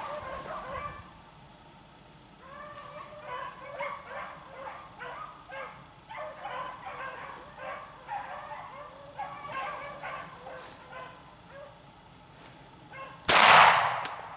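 A pack of beagles baying on a rabbit's trail in a steady run of calls. Near the end comes a single loud shotgun blast at the rabbit.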